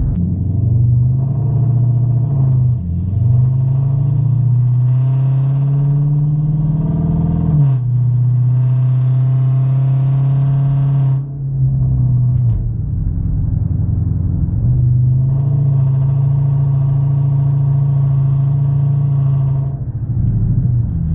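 Straight-piped 5.7 L Hemi V8 of a Chrysler 300C, no mufflers, resonators or catalytic converters, droning under way. The pitch rises steadily as the car pulls, drops suddenly at a gearshift about seven and a half seconds in, then holds steady at cruise with a brief dip near the middle.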